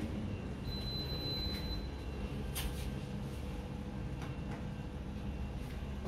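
Steady low hum inside a stainless-steel lift car, with a high beep lasting about a second near the start. A few sharp clicks follow, two of them about four seconds in as the basement floor button is pressed.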